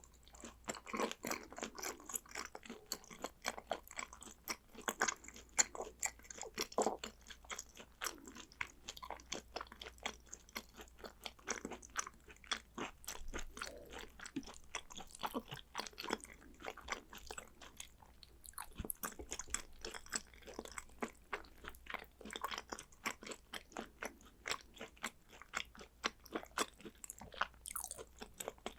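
Close-miked chewing and mouth sounds of a person eating Korean beef and sea urchin roe: a dense, steady run of quick clicks and smacks.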